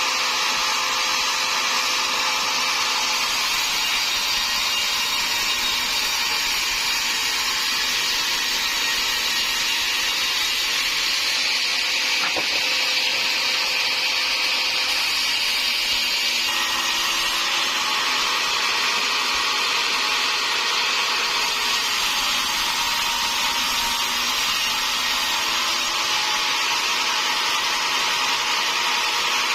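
Sawmill saw running and cutting through timber, a steady high-pitched cutting noise with a slight change in tone about halfway through.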